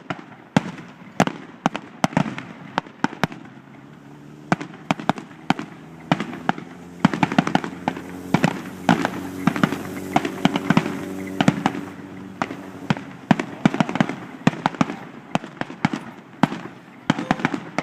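Fireworks going off in a rapid run of sharp pops and bangs, thickening about four seconds in into a dense crackle of reports. A steady low drone sounds under it through the middle stretch.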